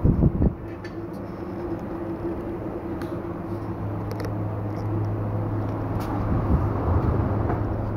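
A steady low machine hum, with a deeper steady tone joining about three and a half seconds in, and a few loud knocks at the very start.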